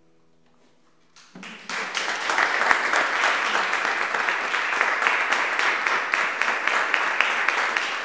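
The last chord of a violin, cello and piano trio rings faintly and dies away, then audience applause breaks out about a second in and keeps up as dense clapping.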